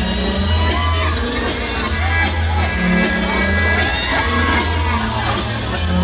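Loud pop music with a heavy, repeating bass line playing from a fairground ride's sound system, with shouts from the riders over it.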